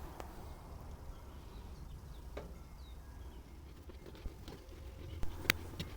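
Knife cutting through a roasted turkey roast, with a few sharp taps of the blade on the board, over a low steady outdoor rumble and a few faint bird chirps.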